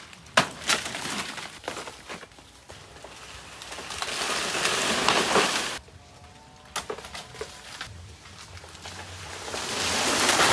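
Banana plant being brought down for its bunch: a sharp snap about half a second in, then two long swells of leaves and stalk rustling and tearing, each stopping abruptly.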